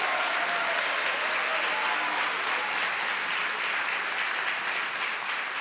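Congregation applauding: many hands clapping together, dying down near the end.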